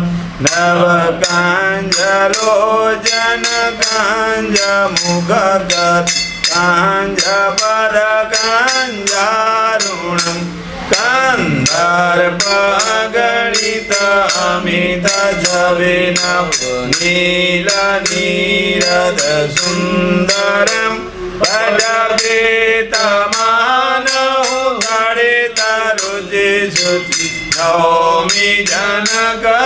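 A man chanting Hindu pooja mantras in a sung, melodic line, with fast, regular clicks running underneath.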